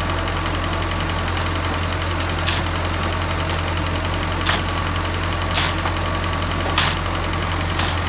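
Engine of a small drilling rig running steadily with a low hum, with five short sharp scrapes or knocks as a worker's bar strikes soil on the auger.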